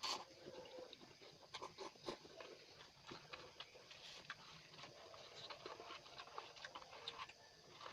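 Faint eating sounds from instant cup noodles: scattered small clicks and ticks of chewing and of a utensil in the cup.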